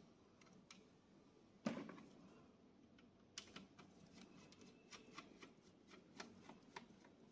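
Faint handling clicks and taps from hands fitting wires and connectors inside an opened inverter welding machine's case. There is one dull knock just under two seconds in, then a sharp click followed by a run of small clicks.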